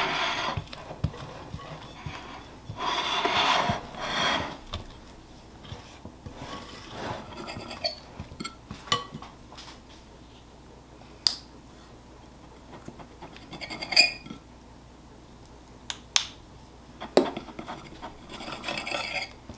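Kitchen utensils scraping and clicking: a spatula scraping buttercream around a glass mixing bowl and a knife cutting cake against a plate. A few longer scrapes come in the first seconds, then scattered sharp clicks.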